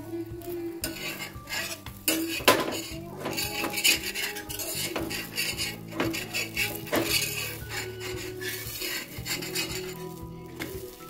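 A steel spatula scrapes and clinks against an iron tawa in short, irregular strokes as it works under a thalipeeth frying in oil and lifts it to turn, with a light sizzle of oil beneath.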